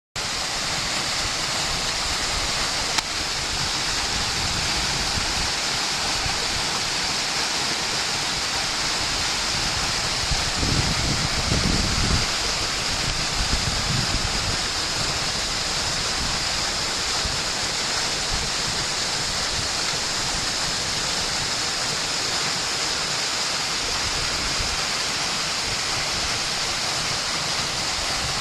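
Waterfall pouring steadily, a constant rushing of falling water. A brief low rumble comes in about ten seconds in and lasts a couple of seconds.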